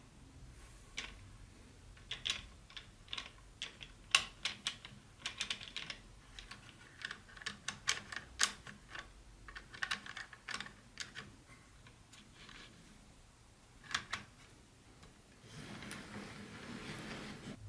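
Small plastic model train pieces being handled: an irregular run of light clicks and taps, then a soft rustle near the end.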